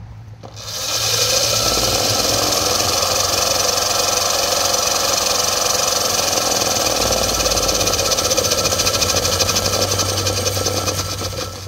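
36V electric motor and chain drive of a converted kids' quad spinning the raised rear wheel at top speed, a steady high-pitched whine that comes up about half a second in and dies away near the end. The no-load speed is very high with the current sprocket sizes, which the owner blames for the quad's low power under load.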